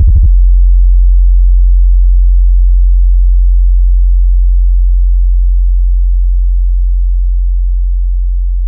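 Deep sub-bass sine tone from a DJ sound-check track, held steady and slowly fading. A rapid stuttering bass pulse cuts off just after the start.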